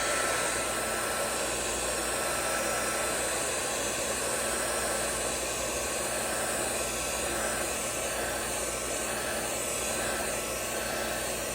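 Electric heat gun running steadily, a constant blowing hiss, warming a sticker so its adhesive will stick.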